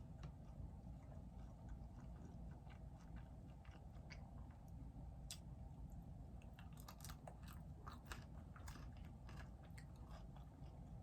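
Faint close-up chewing of crusty baguette, with scattered small crunchy clicks that come more often in the second half.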